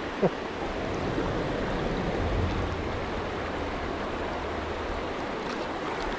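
Shallow stream current rushing steadily around wading legs, with some low rumble of wind on the microphone.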